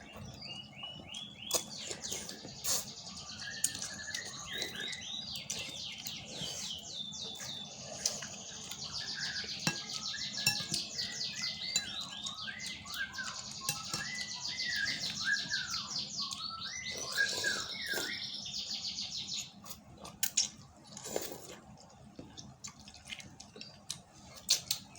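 Several small birds chirping and trilling, with fast repeated chirp series and lower whistled notes, fading out about three-quarters of the way through. Occasional short clinks of eating utensils.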